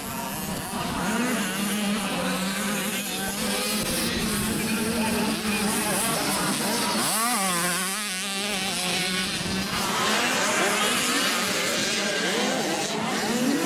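Several 65cc two-stroke motocross bikes racing, their engines revving up and down over one another as the riders work through the corners. About seven seconds in, one nearby bike revs up high and drops back, over a steady drone.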